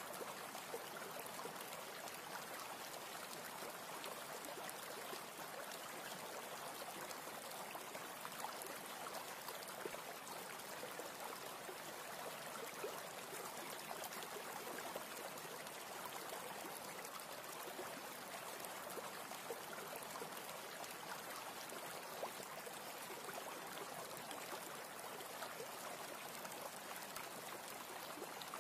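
A steady, even rushing hiss with faint scattered ticks, unchanging throughout.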